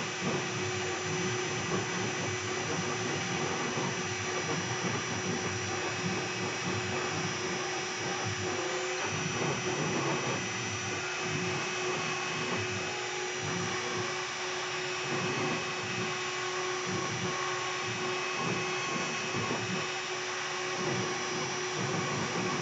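Air-cooled 2.2 kW spindle of a CNC router running while a 60-degree V-bit carves wood: a steady whine of constant pitch over a rushing noise, with the lower cutting sound rising and falling as the bit moves.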